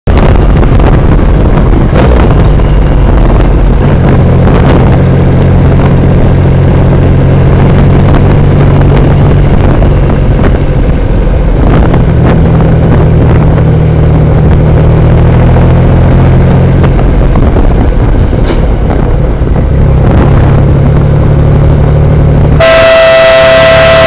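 Motorcycle riding at highway speed: the engine runs steadily under wind noise, its note changing a few times as the bike slows. Near the end a vehicle horn blasts, one loud steady tone held for over a second.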